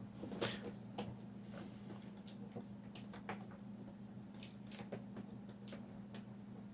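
Faint, irregular scratching and clicking of the pointed plastic end of a cleaning brush picking hair out of a robot vacuum's rotating brush, over a low steady hum.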